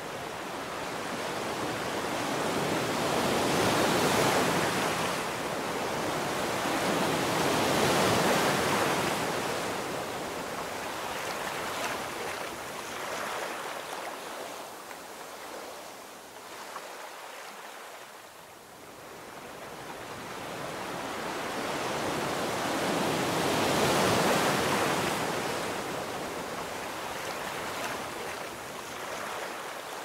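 Sea surf: waves breaking and washing in, a steady rush of water that swells and fades in slow surges. It is loudest about four, eight and twenty-four seconds in, with a lull in the middle.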